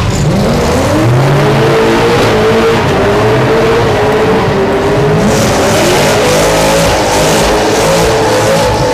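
Drift cars sliding through a road tunnel: engines revving hard, their pitch rising and falling, over tyre squeal that grows louder about five seconds in.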